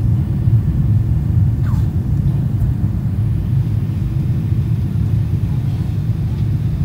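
Steady low rumble of a jet airliner's cabin in flight: engine and airflow noise during the descent.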